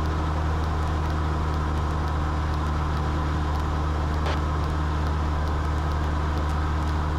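Cessna 172's piston engine and propeller droning steadily inside the cabin during flight, a constant low hum with no change in pitch.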